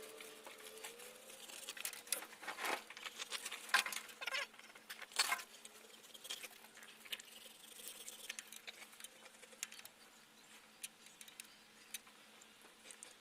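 Light clicks, taps and scraping from a gear-shift knob being handled and fitted onto a truck's shift lever, with a few sharper knocks between about two and five seconds in. A faint steady hum sits underneath.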